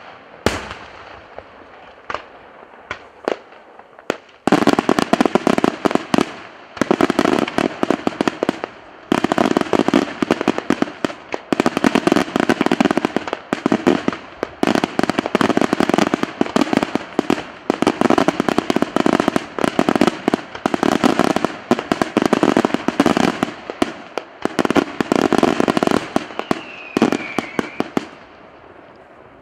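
Daytime aerial fireworks bursting. A few separate bangs open it, then about four seconds in a dense, rapid volley of bangs begins and runs for over twenty seconds with brief pauses, stopping near the end.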